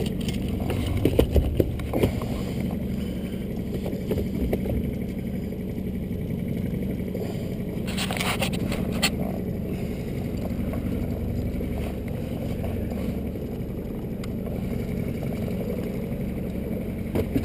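Boat motor running steadily at low speed, with a few sharp knocks and scrapes about a second in and again about eight seconds in.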